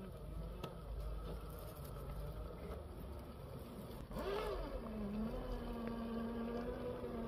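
Traxxas TRX-4 RC rock crawler's Hobbywing Fusion brushless motor and two-speed gearbox whining as it crawls over rocks. The pitch rises and falls briefly about four seconds in, then settles into a steady whine; a low rumble underlies the first half.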